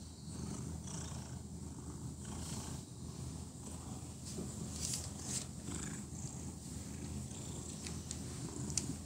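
Domestic cat purring steadily while being stroked, with a few brief rustles about halfway through and again near the end.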